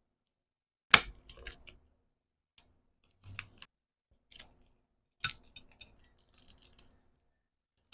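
Small hard objects and packaging handled on a table: a sharp clack about a second in, then lighter clicks and taps, and a short run of faint crinkly ticks near the end.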